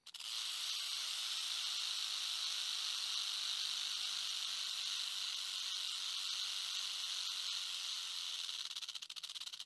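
A steady high-pitched hissing buzz that sets in abruptly and turns into a rapid flutter near the end.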